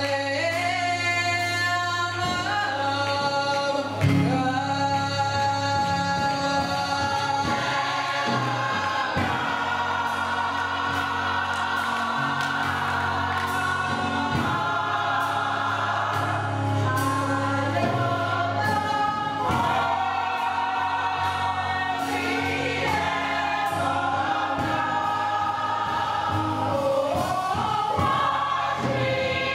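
Gospel choir singing with musical accompaniment, held notes swelling and changing in pitch.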